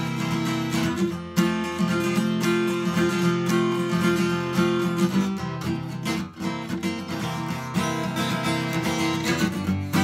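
Furch D32 SM dreadnought acoustic guitar, with a spruce top and mahogany back and sides, strummed in ringing chords with frequent strokes. The sound briefly dips just after a second in and again around six seconds.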